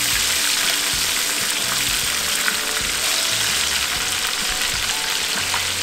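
Chicken pieces and rosemary sprigs frying in a pan of hot oil, a steady sizzle just after a fresh batch has gone in.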